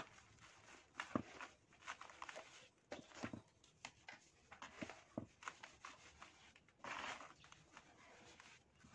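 Dry sand crumbled between the fingers and trickling back onto a heap of sand: faint scattered crackles and soft trickling, with a louder pouring hiss about seven seconds in.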